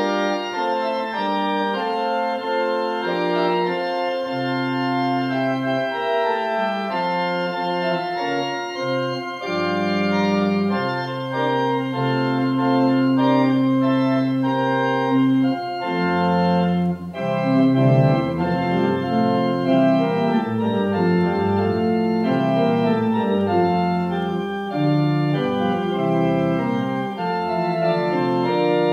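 Organ music: full sustained chords held for a second or two at a time, with a stretch of quicker moving notes in the middle.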